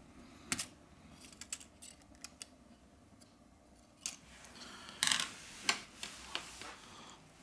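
Irregular small clicks and brief scrapes of a repair tool working inside an opened smartphone, as flex-cable connectors are pried off and handled. The loudest stretch is a short scrape followed by sharp clicks about five seconds in.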